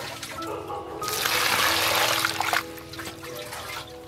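Water pouring into a plastic basin of avocados, starting about a second in and stopping about a second and a half later, over background music.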